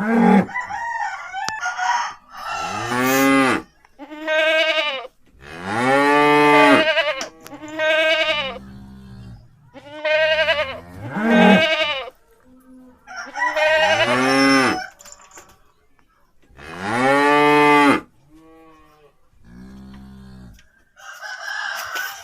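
Cattle mooing: a string of about ten long calls, each rising and then falling in pitch, with short pauses between them.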